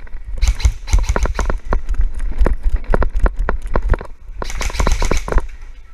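Running footsteps, several hard steps a second, with the camera and gear jostling and low rumbling on the microphone. The steps come thickest in the first two seconds and again near the end.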